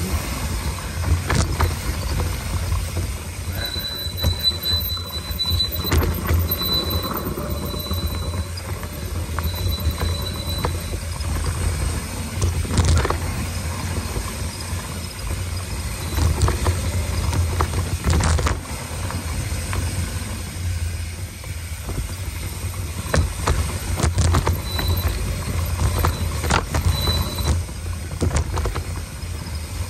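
Mountain bike descending a dirt trail: a steady low rumble of wind and tyres, with frequent knocks and rattles as the bike hits bumps and roots. A thin high brake squeal comes and goes, mostly from about four to eleven seconds in and briefly twice near the end.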